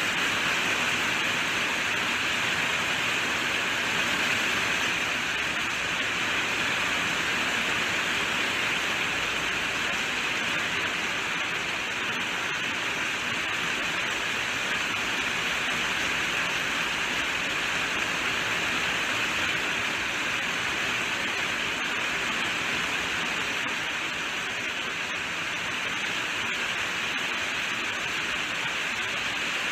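Steady heavy rainfall, an even hiss of falling rain with no pauses or single drops standing out.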